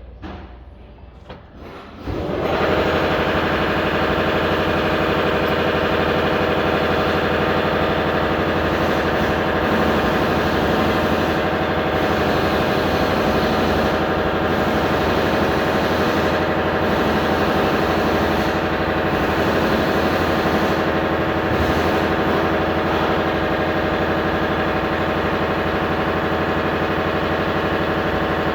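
Car engine starting about two seconds in, then idling steadily.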